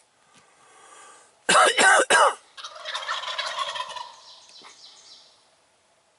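Wild turkey gobbling loudly and close, with a short burst of about three pulses. A softer, rattling continuation follows and fades out over the next few seconds.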